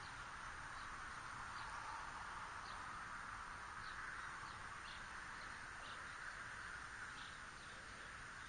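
Quiet outdoor ambience: a steady hiss with about ten short, faint, high chirps from small birds scattered through it.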